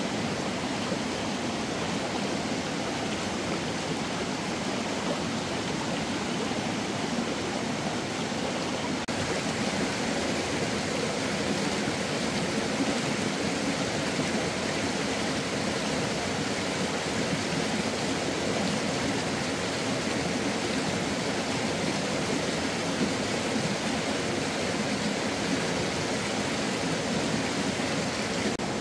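Steady rushing of flowing stream water, an even wash of noise with no distinct splashes.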